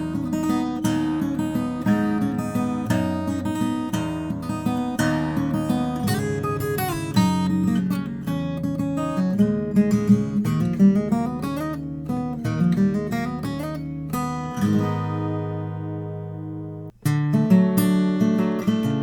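Martin 00-28 Modern Deluxe acoustic guitar played solo, picked and strummed, recorded dry through a microphone with no EQ. Near the end a chord is left to ring for about two seconds and is cut off abruptly, then the playing resumes.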